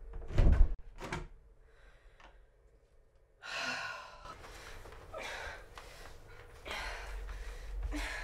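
A wooden door thumps twice in quick succession, then a person breathes hard and gasps while straining against being held.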